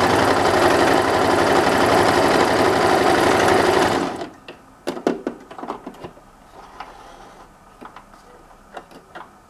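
Lucznik 555 Laura electric sewing machine running at a steady speed, stitching a twin-needle test seam, then stopping about four seconds in. A few light clicks and knocks follow.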